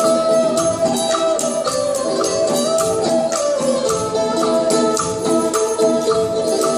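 Traditional Vietnamese ensemble music accompanying a water puppet show: a held melody line over a steady, jingling metal percussion beat.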